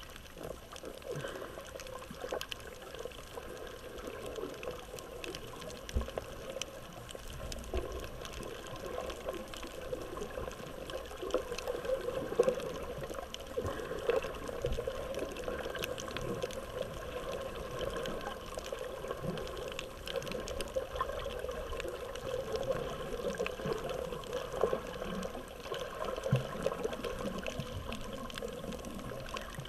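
Muffled underwater sound picked up by a GoPro in its waterproof housing: a steady wash of moving water, with many short faint clicks and crackles scattered through it.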